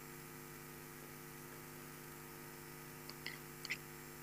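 Steady electrical mains hum, a low buzz made of several even tones. A few faint, brief ticks come about three seconds in.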